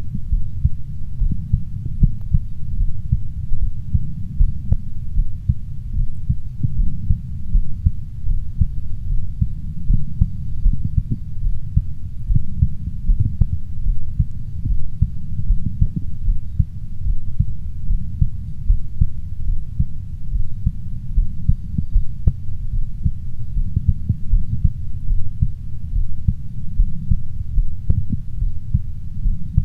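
A person's heartbeat heard through a stethoscope pressed to the chest: dull, low beats repeating steadily, with a few faint clicks now and then.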